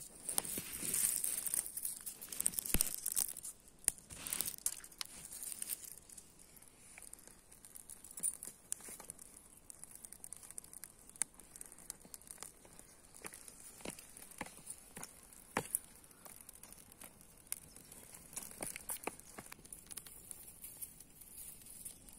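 Dry twigs and grass rustling and crinkling for the first several seconds, then a small fire of dry twigs crackling with scattered sharp pops as it catches and burns.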